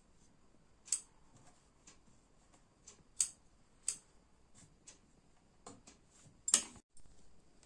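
A few sharp, separate clicks and snips at uneven intervals, the loudest near the end, from tailoring tools and cloth being handled on the work table.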